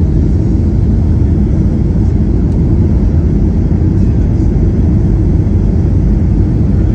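Steady low rumble inside the cabin of a Boeing 737-800 on final approach: its CFM56 turbofan engines and the airflow over the extended flaps.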